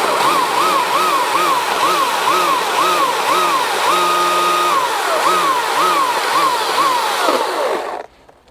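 EGO CS2005 battery-powered chainsaw running under load, its electric motor whine dipping in pitch and recovering about twice a second as the chain bites into wood. It runs steady for a moment midway, then winds down and stops near the end.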